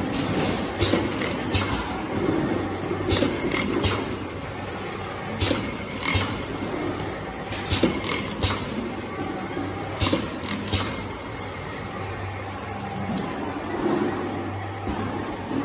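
Automatic bottle-capping machine and bottle conveyor on a liquid-detergent filling line running: a steady machine hum with irregular sharp clicks and clatters, most of them in the first two-thirds.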